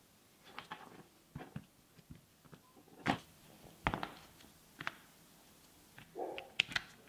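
Faint, scattered clicks and knocks of metal drill parts and plastic housing being handled and set in place while reassembling a cordless rotary hammer drill, with a few sharper taps a little after three and four seconds in and near the end.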